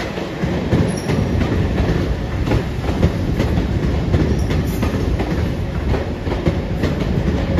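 381-series Yakumo limited express electric train moving at low speed onto a siding, its wheels clattering over rail joints and points in an irregular run of clicks over a steady rumble, with a brief faint wheel squeal about a second in.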